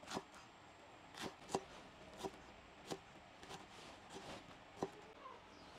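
A series of light, sharp knocks at an uneven pace, roughly one or two a second.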